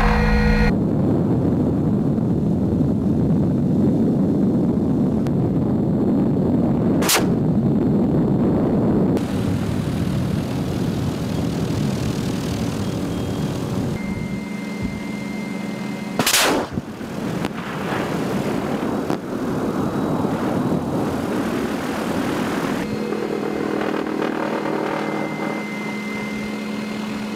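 MD 530F Cayuse Warrior helicopter's rotor and turbine noise heard inside the open cockpit, broken by two sharp weapon reports from its on-board weapons, about 7 and 16 seconds in, the second the loudest.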